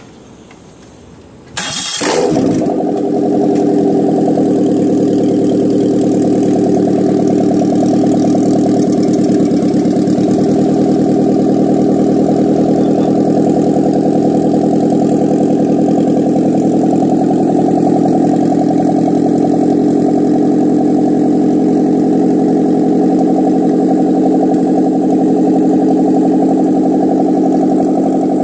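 A Toyota/Daihatsu K3 four-cylinder car engine is started, catching with a sudden burst about two seconds in, then idling steadily.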